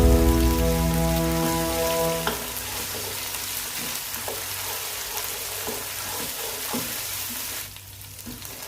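Curry sizzling in a hot pan, an even frying hiss with a few light knocks, fading out near the end. Background music plays over the first two seconds or so.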